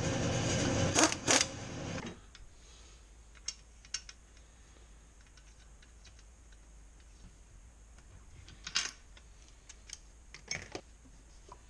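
Small engine parts and metal tools clicking and tapping as they are handled and fitted together by hand on a workbench, a few sharp clicks a few seconds apart. A louder steady noise with two sharp clacks stops about two seconds in.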